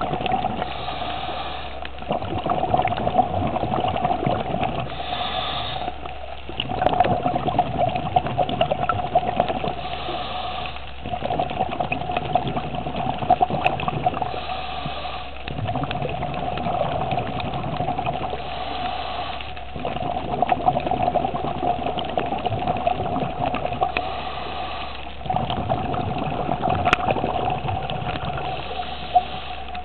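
Scuba diver breathing through a regulator underwater: a short hissing inhale, then a longer stretch of bubbling exhaust, repeating about every four to five seconds over a steady hum.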